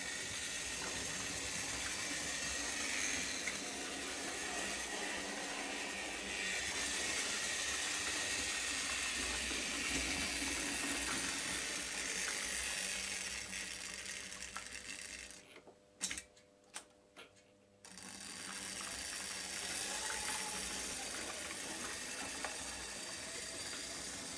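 Model steam locomotive running on a model railway layout: steady whir of its small electric motor and the rattle of its wheels on the track. About two-thirds through, the running stops for a couple of seconds, a few sharp clicks sound, and the running starts again.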